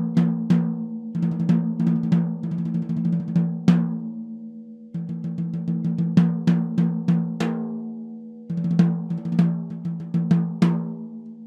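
Ludwig 14x6.5 Phonic snare drum with a 1.2 mm seamless raw brass shell and Remo Ambassador heads, played with sticks in quick runs of strokes with a few louder accents, leaving a sustained ring from the drum. It is played in four phrases, with short breaks about a second in, about five seconds in and about eight and a half seconds in.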